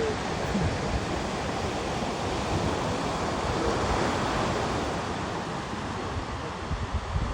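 Ocean surf washing on the beach in a steady rush that swells a little midway, with wind buffeting the microphone in low rumbles near the end.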